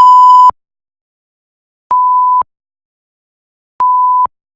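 Three electronic beeps at one steady pitch, each about half a second long and about two seconds apart. The first beep is louder and slightly distorted.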